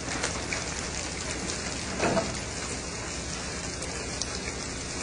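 Steady hiss of water and a low drone on a fishing vessel's deck at sea, with a brief louder burst about two seconds in.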